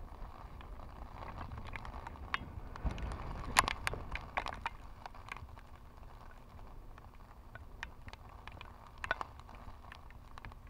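Heavy rain and wind: irregular ticks of raindrops striking the camera housing over a low wind rumble on the microphone, with the ticks thickest in the first few seconds.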